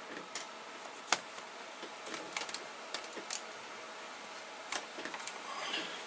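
Scattered light clicks and knocks of hard plastic computer gear being handled on a desk as a flat-screen monitor is adjusted on its stand, with one sharper click about a second in.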